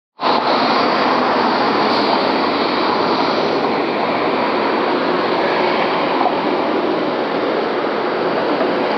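Steady road-traffic noise of vehicles passing close by: tyre and engine noise from a Scania K230UB city bus driving past, along with cars and a light truck.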